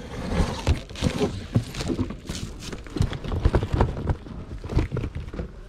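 Plastic stretch wrap crinkling and uneven knocks as wrapped boxes and an aluminium carry case are shifted and pulled out of a stack.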